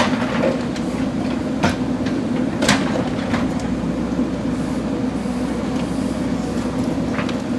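JCB backhoe loader's diesel engine running steadily, with several sharp knocks; the loudest comes about three seconds in.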